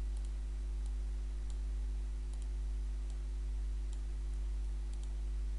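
Steady low electrical mains hum picked up by the recording microphone, with a few faint clicks scattered through it.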